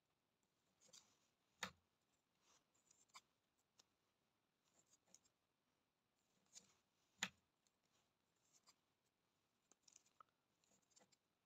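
Faint rustling and light clicks of nylon twine and a netting needle being handled while net meshes are tied by hand, with two sharper clicks about 2 s and 7 s in.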